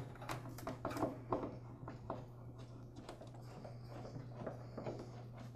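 Hand screwdriver turning out the screws that hold the switch box to a table saw: a run of faint, irregular small clicks and scrapes of metal, over a steady low hum.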